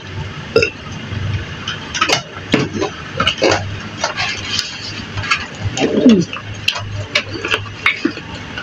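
Scattered clinks and knocks of plates and cutlery, with other small table noises, during a meal. A brief voice-like sound about six seconds in is the loudest moment.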